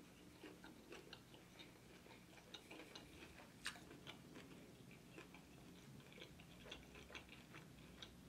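Faint chewing of a boneless chicken wing: small, soft, wet mouth clicks scattered throughout, one a little sharper near the middle.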